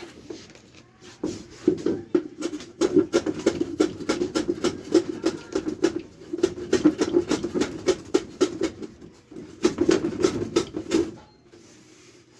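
Hammer tapping on wood in quick, sharp strikes, several a second, with a short pause about nine seconds in.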